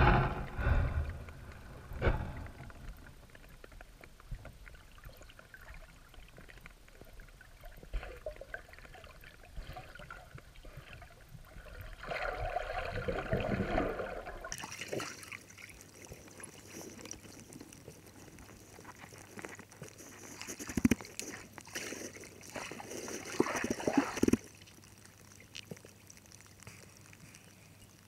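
Underwater sound through a camera housing: muffled water movement with occasional knocks. It changes abruptly about halfway to a thinner hiss with scattered crackles and a few short bursts of sloshing.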